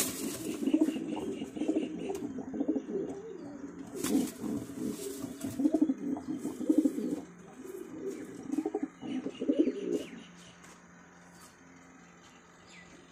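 Domestic pigeons cooing over and over in low, throaty rolls, falling quiet about ten seconds in.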